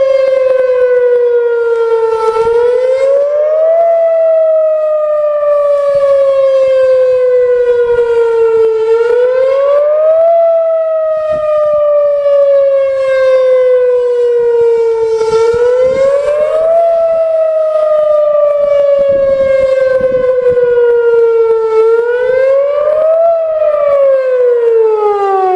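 Whelen Vortex R-4 outdoor tornado siren sounding its fast wail for a drill test: a loud pitched wail that climbs quickly over about a second and a half, then sinks slowly for about five seconds, about four times over. Near the end the pitch drops off steeply as the siren winds down.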